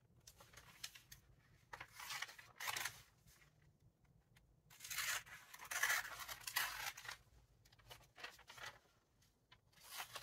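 Scissors cutting through a magazine page, in several separate bursts of snipping and paper rustle, the longest and loudest about five to seven seconds in.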